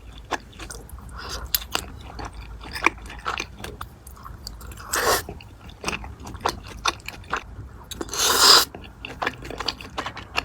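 Close-up chewing and biting, with many small sharp clicks and crunches. A short louder noisy burst comes about five seconds in, and a longer, loudest one comes near the end.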